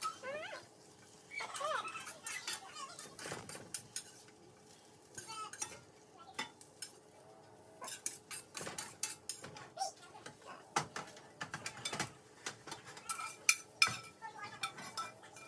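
Metal utensil clinking and scraping against a pan of fried potatoes in irregular strikes.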